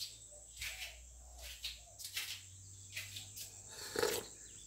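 A single sip from a coffee mug about four seconds in, the loudest sound. Short, faint, high chirps repeat about twice a second over a low steady hum.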